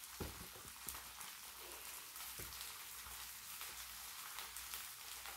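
Squid-and-scallion pancakes (pajeon) sizzling faintly on a hot griddle, a steady crackling hiss, with a few light clicks in the first few seconds.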